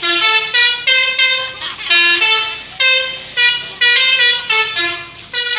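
Bus 'telolet' horn, a set of musical air horns, playing a quick tune of short notes at several pitches, phrase after phrase.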